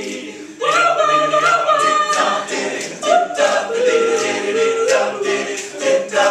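All-male a cappella group singing a doo-wop song in close harmony, without instruments. The voices drop away briefly just after the start and come back in strongly a little over half a second in.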